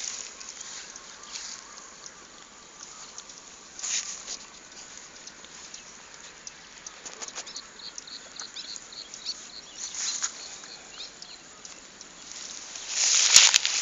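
Intermittent rustling and scuffing, louder near the end, with a quick run of about ten short high chirps about eight seconds in.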